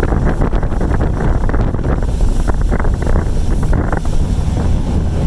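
Strong wind buffeting the microphone in a loud, steady rumble, with short knocks scattered through it.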